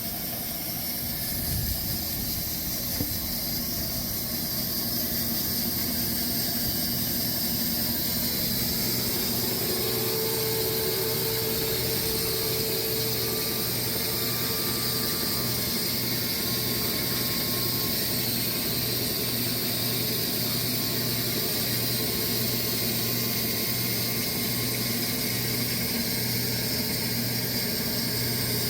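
Sawmill running steadily: an engine hum under a constant hiss as the blade cuts a dry Bastogne walnut log. A brief higher tone rises out of it about ten seconds in.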